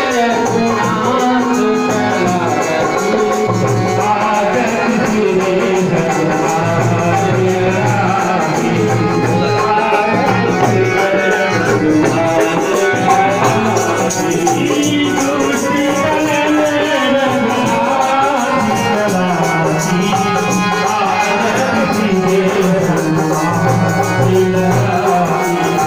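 Devotional music: singing over steady, jingling rattle-like percussion.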